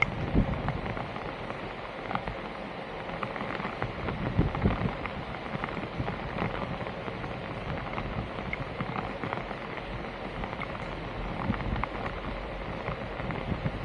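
Steady sound of water, with many small splashes and a few low knocks throughout.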